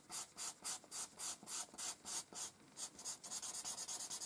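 A paper blending stump rubbed back and forth over charcoal on drawing paper to blend it: quiet, even strokes at about three a second, quickening to about six a second near the end.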